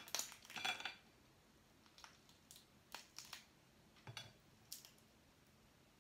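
Shrimp shell being cracked and peeled by hand: a short run of crackling in the first second, then scattered faint snaps and clicks.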